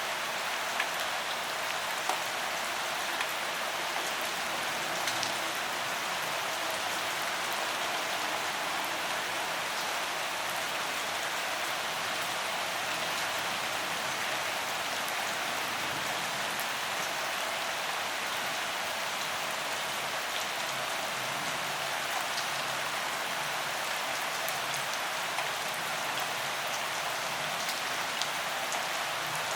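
Steady, gentle rain falling, with a scattering of louder single drops ticking now and then.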